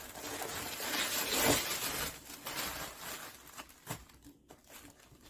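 Green tissue paper rustling and crinkling as it is pulled open by hand, loudest in the first couple of seconds, then dying down to a few faint handling sounds.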